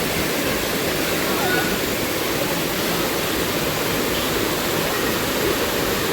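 Waterfall pouring steadily: a dense, even rush of falling water with no change in level.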